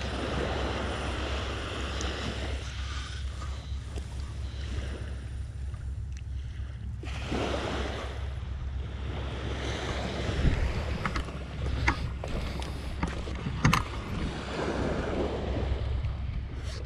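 Wind buffeting the microphone over small waves washing on a sandy beach, the wash swelling and fading a few times. There are a few sharp clicks in the middle.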